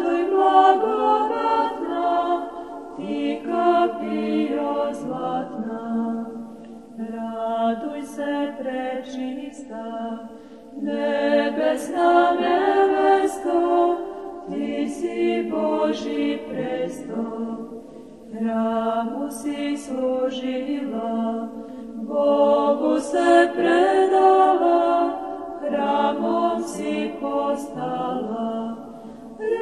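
A choir singing a slow chant unaccompanied, in phrases of a few seconds with short breaks between them.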